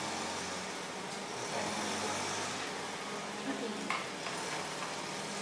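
Mixed ambient background noise: a grass cutter running steadily, with faint voices of people talking and construction sounds.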